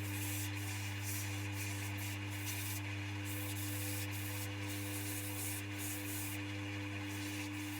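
Coronet 1 wood lathe running with a steady motor hum, with sandpaper held against the spinning wooden workpiece making an even rubbing hiss.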